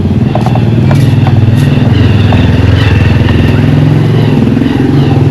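A motor vehicle engine running close by, a steady loud low rumble.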